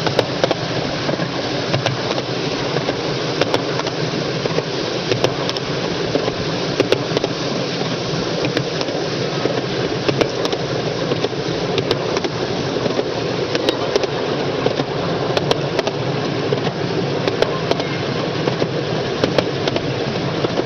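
Miniature railway train in motion: a steady running rumble and rattle from the wheels on the track, with frequent sharp clicks scattered through it.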